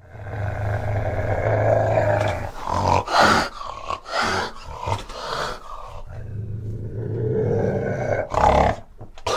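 Fishing cat growling: a long low growl, then a run of short, harsh outbursts in the middle, then low growling again, with a few more outbursts near the end.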